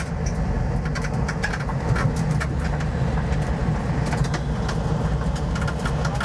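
Ford SVT Lightning pickup driving at a steady pace, its engine and road rumble heard from inside the covered truck bed, with scattered rattles and knocks.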